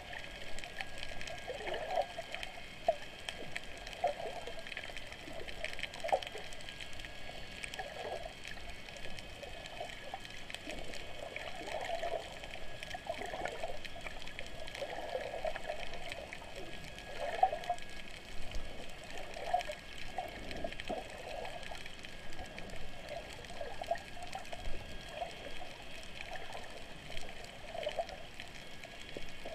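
Muffled underwater water noise heard through a submerged camera: irregular gurgling swells every second or two over a steady high hiss.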